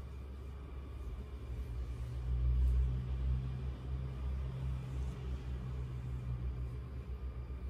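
A low rumble with a steady hum underneath, swelling about two seconds in and easing off over the next few seconds.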